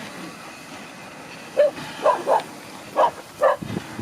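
A dog barking: about five short barks in quick succession, starting about a second and a half in.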